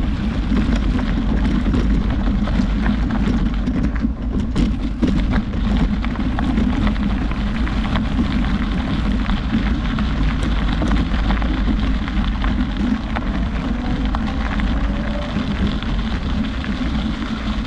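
Wind buffeting the microphone in a steady low rumble, with a fine crackling hiss over it and a few brief ticks about four to five seconds in.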